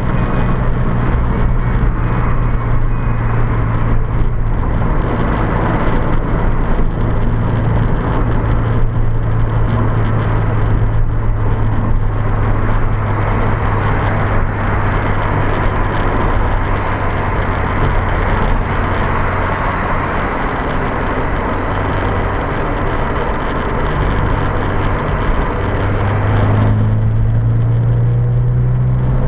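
Inside a Subaru BRZ at freeway speed: the flat-four engine drones steadily under road noise, with a fine rattle coming from inside the Mobius action camera that is recording it, which the owner hears even when shaking the camera by hand. Near the end the engine note climbs.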